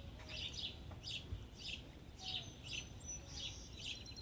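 Songbirds chirping: short high chirps repeating about three times a second, with a second bird's thin whistled notes in the middle.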